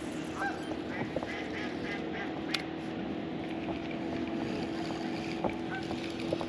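Ducks quacking a few times over a steady low hum, with one sharp click about two and a half seconds in.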